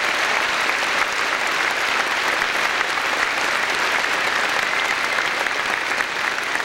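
A large audience applauding steadily, a dense wash of many hands clapping.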